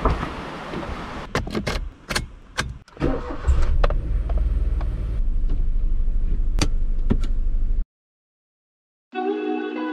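Small Suzuki car's door handle and door clicking and knocking shut. About three and a half seconds in, the engine is started and settles into a steady idle, which cuts off abruptly near the end.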